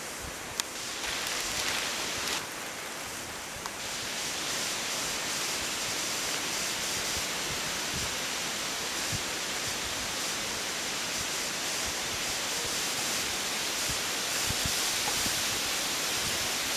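Steady outdoor rushing hiss, like wind or running water, that grows louder about a second in and again about four seconds in, with a sharp click about half a second in and a few faint knocks.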